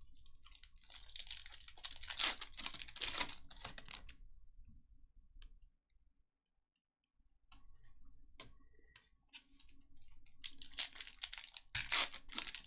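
Trading card pack wrappers crinkling and tearing as packs are opened and the cards handled: two busy stretches of rustling and clicks, from about a second in to about four seconds and again from about ten seconds on, with a quiet pause in between.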